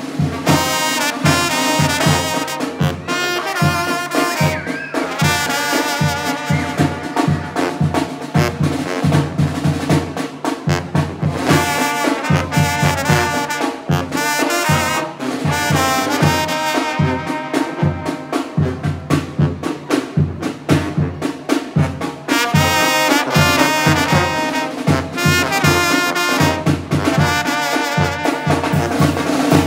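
Live tamborazo band playing: trumpets and trombones carry the melody over tuba, snare drum and a steady bass-drum beat.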